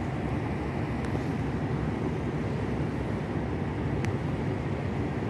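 Steady low rumble of a cruise ship manoeuvring to berth, its thrusters churning the water alongside the hull.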